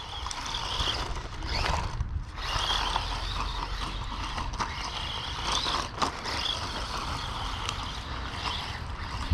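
DEERC 9310 1:18-scale RC monster truck driving over rough ground: its electric drive motor whines, rising and falling with the throttle, over the rattle of the drivetrain and tyres, with a few small knocks.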